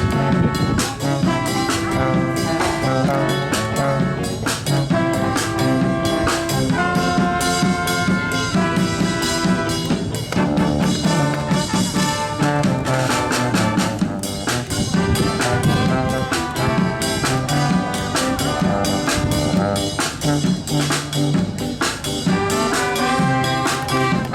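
Jazz band music: brass horns such as trombone and trumpet playing held melodic notes over a steady drum-kit beat.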